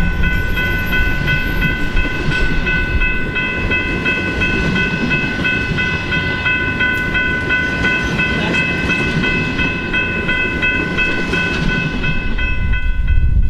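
Canadian Pacific heritage passenger cars rolling past, the wheels rumbling on the rails. Over the rumble there is a steady high ringing that repeats about three times a second.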